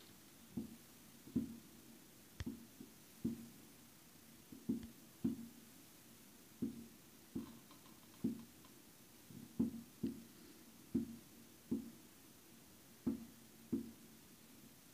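Distant fireworks bursting: a string of dull booms at irregular intervals, about one or two a second, each fading quickly.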